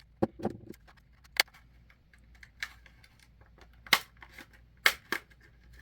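Plastic snap-fit clips of a TI-30Xa calculator case clicking as the black back panel is forced off the gray front panel: a scattered series of sharp plastic clicks, the loudest about four and five seconds in.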